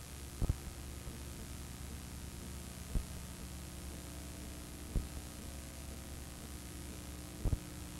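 Steady electrical hum and hiss from a blank, black-picture stretch of a video-tape transfer. A few low pops stand out above it, about every two to two and a half seconds, two of them doubled.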